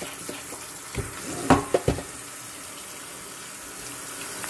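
Kitchen tap running onto diced raw potatoes in a plastic colander, rinsing off the starch. There are a few knocks between one and two seconds in, the loudest about one and a half seconds in.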